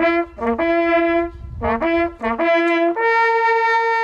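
Hunting horn sounding a fanfare call: short and longer notes leaping between a few pitches of the horn's natural series, ending on a long held high note.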